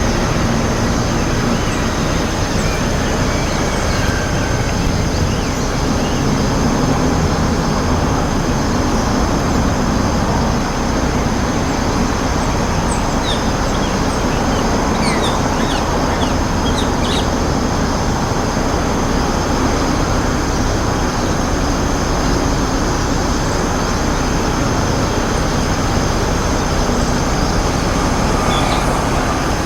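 Steady traffic rumble, with a cluster of short, faint, high calls from rose-ringed parakeets midway through and one more near the end.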